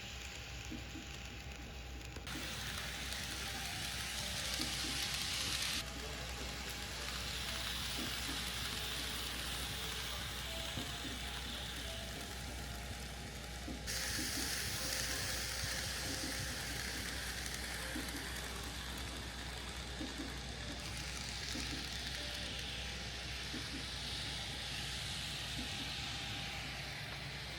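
N-scale model Shinkansen running on layout track: a steady rolling hiss with faint scattered ticks, its level and tone changing abruptly several times.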